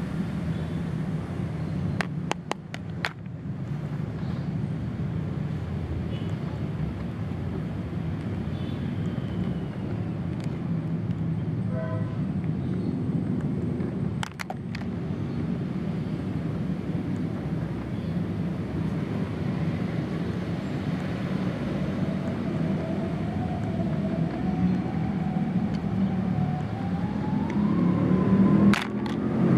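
Steady rumble of a running vehicle engine, rising in pitch and getting louder over the last several seconds as it revs up. A few sharp clicks of hard plastic toys being handled.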